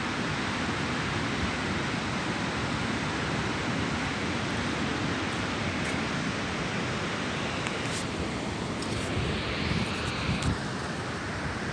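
Steady rushing of sea surf mixed with wind on the microphone, with a few faint clicks near the end.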